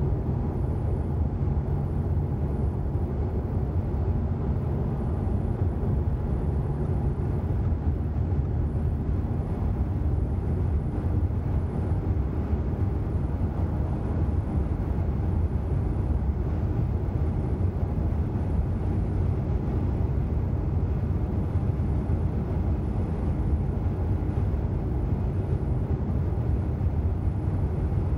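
Steady low road noise inside a moving car's cabin at cruising speed: tyres, engine and wind blended into an even hum.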